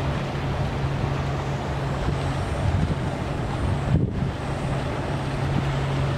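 Engines of a fast workboat passing at speed, a steady low drone, with its wake washing and wind buffeting the microphone.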